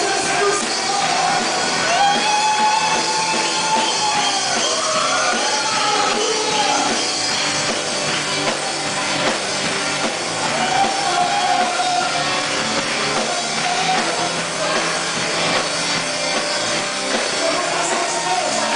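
Live worship music from a rock-style band with a drum kit and sung melody, played loud.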